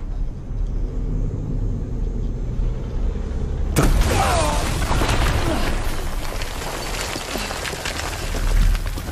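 A low rumble, then about four seconds in a sudden explosion that carries on as a dense noise of blast and debris.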